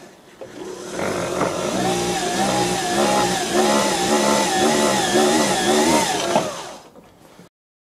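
Cordless electric drill powered by a hand-cranked generator, its motor whining as it bores into a wooden block. Its pitch warbles up and down about twice a second as the crank turns. It starts about a second in and winds down near the end.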